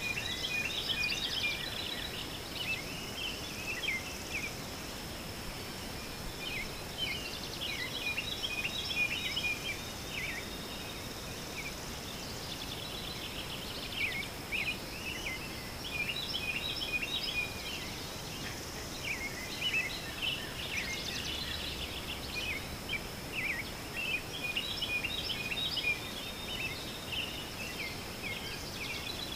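Birds chirping in clusters of short high calls over a steady high-pitched insect buzz.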